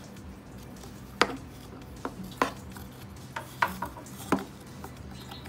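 Hard plastic coolant hose fittings clicking and knocking as they are handled, about seven sharp taps at uneven intervals.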